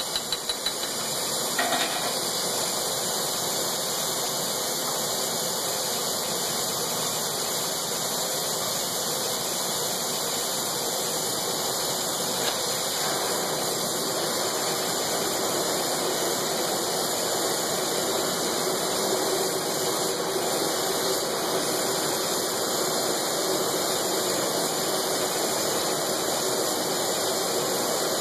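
Glassblowing torch flame hissing steadily while a glass tube is warmed in it. A few light knocks come in the first second or two.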